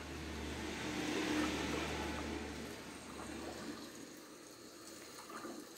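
Wildlife documentary soundtrack from a television speaker: a soft rushing noise like water at a riverbank, with a low hum in the first half, fading away over the last few seconds.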